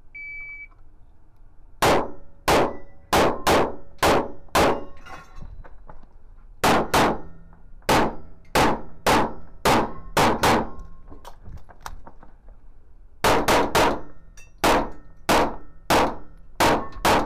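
IPSC stage start: a shot timer gives a single short beep, then a pistol fires about two dozen rapid shots. They come in three quick runs with short pauses between them.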